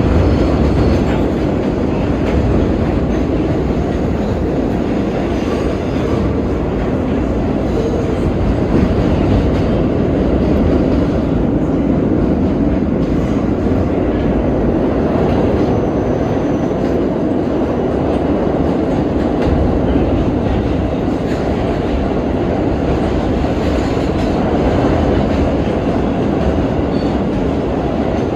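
R32 subway train running at speed, a loud, steady rumble of wheels on rail heard from aboard the car.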